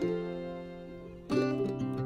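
Background music on plucked strings. A chord fades away, then a louder run of quick plucked notes starts about a second and a half in.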